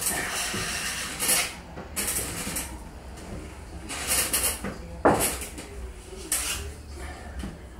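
Drywall trowel scraping across a ceiling in a series of irregular strokes, spreading joint compound for a skip-trowel texture, with a sharp knock about five seconds in.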